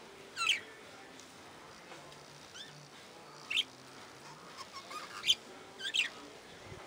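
Budgerigars chirping: short, sharp calls every second or so, the loudest about five seconds in.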